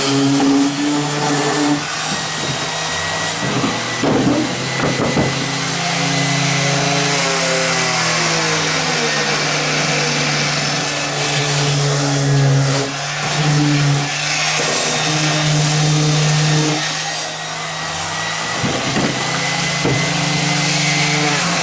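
Older Ryobi electric sander running on the wooden surface of an ammo crate, sanding it smooth. Its motor whine is steady, then slides down and back up in pitch several times as it works.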